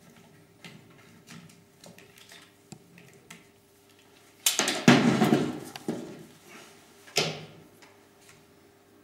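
Light clatter and knocks of a tool and a plastic window profile being handled, with a loud rushing burst about four and a half seconds in that lasts over a second, and a shorter one about seven seconds in.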